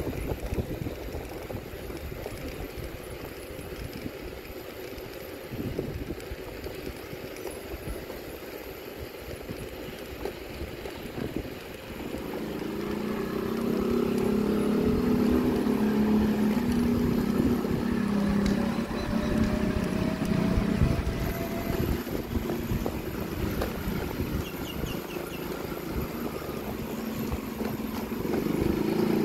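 Wind rumbling on the microphone while moving along the road. About twelve seconds in, a motor vehicle's engine hum rises and holds steady, drops back at about twenty-two seconds, and returns near the end.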